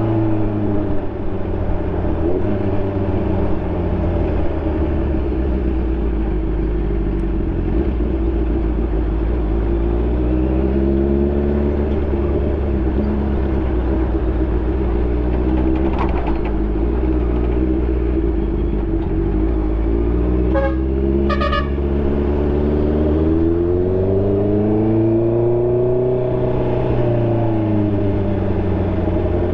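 2020 Honda CB650R inline-four with an SC Project exhaust, under way at moderate revs. The engine note rises and falls with throttle and gear changes, with a longer climb and drop in revs near the end.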